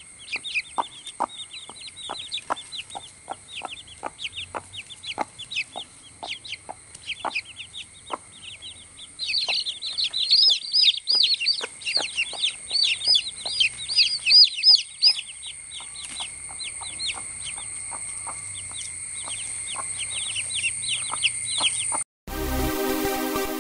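A brood of newly hatched chicks peeping constantly in quick high chirps, loudest midway, with a hen's soft clucks under them. About a second and a half before the end it cuts abruptly to electronic music.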